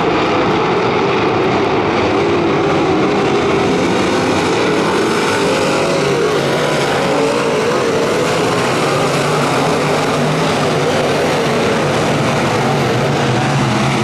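A pack of IMCA modified dirt-track race cars running together around the oval, their V8 engines making a loud, continuous drone whose pitch wavers and rises and falls as the cars rev through the turns.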